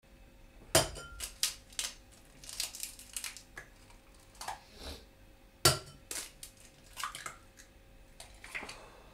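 Raw eggs being cracked into a drinking glass: a run of irregular sharp taps and clicks of shell against glass and of the glass on the kitchen worktop.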